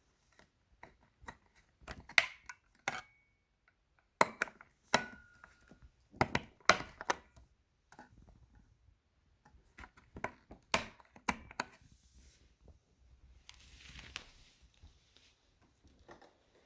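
Irregular clicks and knocks of hard objects being handled, some with a brief ring after them, in short clusters with quiet gaps between; no motor running.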